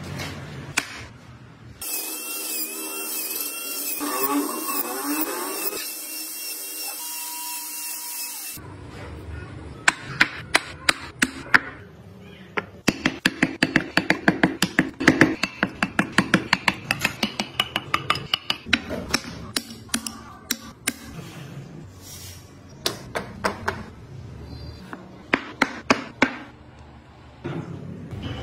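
A power tool runs with a high whine for several seconds. Then comes a long run of sharp clicks and taps, several a second, as a hand chisel cuts into a pine board to carve out wheel spokes.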